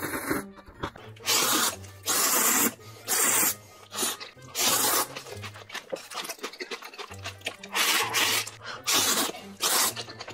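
Ramen noodles being slurped loudly into the mouth, a run of noisy slurps about a second apart.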